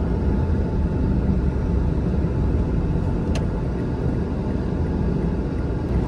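Car driving, with a steady low rumble of road and engine noise and a single short tick a little past halfway.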